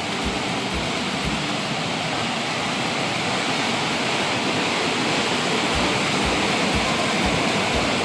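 Floodwater pouring out through the gates of a small dam and churning into white-water rapids below, a steady loud rush that grows slightly louder near the end. The water is being let out because the pond is over-full after heavy rain.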